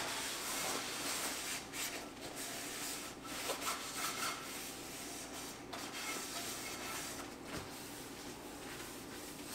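A paper towel rubbing around the inside of a frying pan, wiping it out; the rubbing is continuous.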